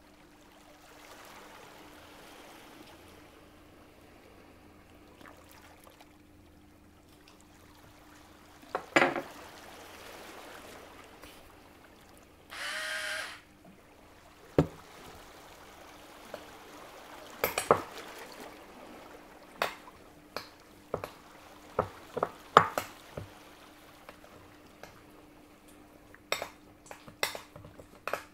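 Kitchen food-preparation sounds: utensils and dishes knocking and clinking, with a run of quick sharp taps in the second half and a brief pitched sound about halfway through, over a faint steady hum.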